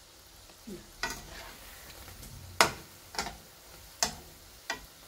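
Banana bread balls deep-frying in hot oil with a faint steady sizzle, while a metal slotted spoon clinks against the metal wok five times, the loudest about two and a half seconds in.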